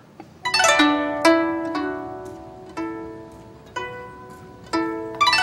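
Chinese zither music: plucked strings played in quick runs of notes, a new phrase about once a second, each note ringing on and fading.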